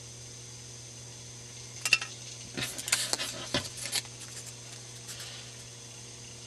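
Foam pieces being handled and lifted off the wooden table of a homemade hotwire cutter: a short cluster of sharp clicks and scraping rustles from about two to four seconds in, over a steady low hum.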